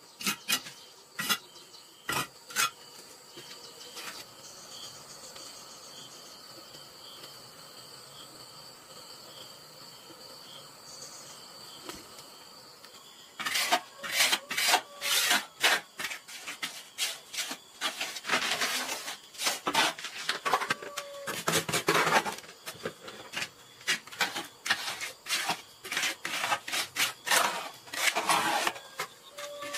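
Steel mason's trowel scraping and tapping on bricks and wet cement mortar. A few sharp taps come first, then a quieter stretch, then about halfway through rapid, repeated rasping strokes begin as mortar is spread and smoothed along a brick countertop.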